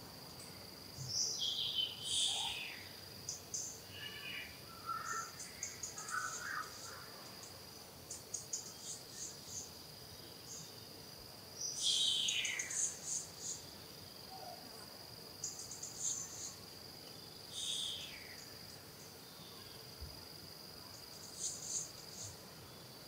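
Forest ambience: a steady, high-pitched insect drone, with birds calling over it. A short falling call comes about a second in, again about halfway through and a few seconds later, amid quick high chirps.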